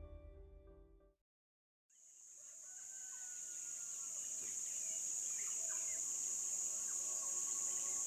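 The end of some music fades out, followed by a moment of silence. Outdoor ambience then fades in: a steady high-pitched drone of insects with scattered bird chirps over it.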